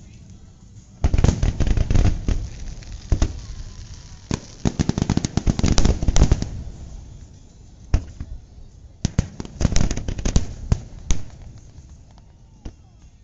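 Fireworks display: aerial shells bursting in rapid volleys of sharp bangs and crackle. There are three dense volleys, each a second or two long, with a few single bangs and short lulls between them.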